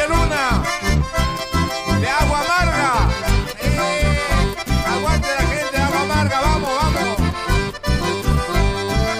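Live band playing an instrumental passage led by button accordions, with quick rising and falling runs over a steady bass beat.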